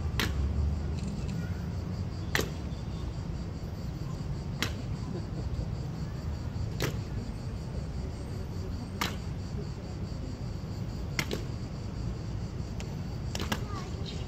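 Evzone guard's hobnailed tsarouchia shoes striking the marble paving in a slow ceremonial march: single sharp clacks about every two seconds, over a steady low traffic rumble.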